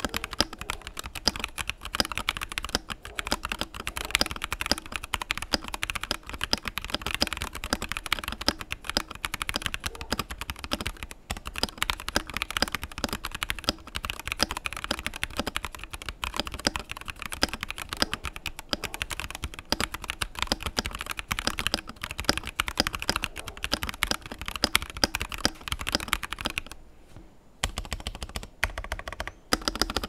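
Fast, continuous typing on a stock Tecware Veil 80 mechanical keyboard with Keychron yellow linear switches in a top-mounted metal plate, plate foam and case foam, and dye-sub PBT keycaps. There is a brief pause in the keystrokes near the end.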